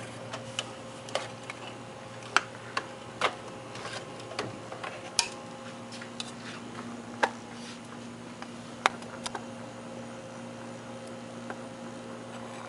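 A plastic Westclox electric wall clock being handled and turned over, giving a dozen or so irregular sharp clicks and knocks, over a steady low electric hum from the running clock's motor.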